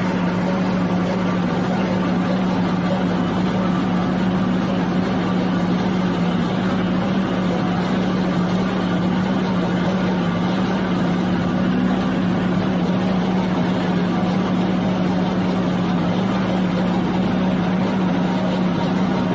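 Excavator with a hydraulic drum cutter attachment running steadily: a constant machine hum with one strong, unchanging low tone over a dense grinding noise.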